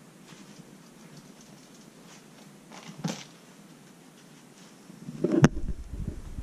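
Kitten playing with a feather teaser wand on tatami mats: faint rustling of paws and the toy, a short knock about three seconds in, then a sharp click followed by several low thumps near the end.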